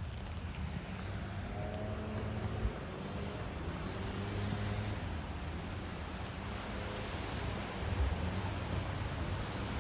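Ocean surf washing steadily, with a low rumble underneath.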